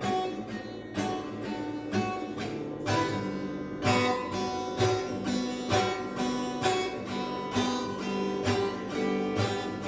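Instrumental music with no singing: a strummed guitar keeping a steady rhythm of regular strokes over held low bass notes.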